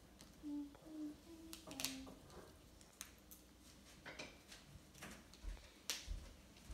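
Faint clicks and light taps of foam craft pieces being handled and pressed together on a tile floor. Four short, soft, low notes step up and then down about half a second to two seconds in.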